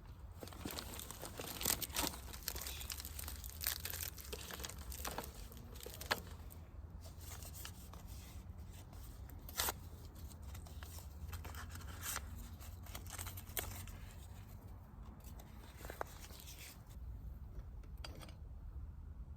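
Crinkly material being crumpled and torn by hand, with scattered sharp clicks.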